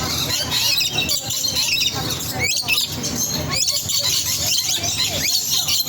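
A dense chorus of many small animals chirping and squeaking: quick high-pitched calls that glide up and down, overlapping without a break.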